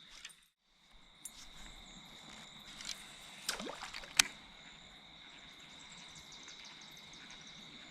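Insects chirring steadily at a high pitch, with light water dripping and sloshing around a kayak. There are a few sharp clicks and a short splash a little before the middle, and the sound briefly drops out just after the start.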